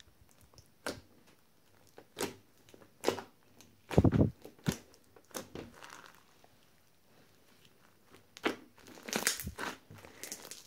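Styrofoam-bead slime (floam) being squeezed, pressed and pulled by hand, giving irregular crackles and sticky pops. The loudest pop comes about four seconds in, with a quick run of smaller ones near the end.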